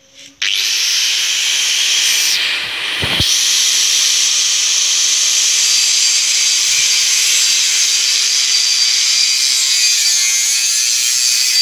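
Handheld angle grinder started about half a second in and cutting into a square steel tube: a loud, steady, high-pitched grinding screech, with a brief dip about two and a half seconds in.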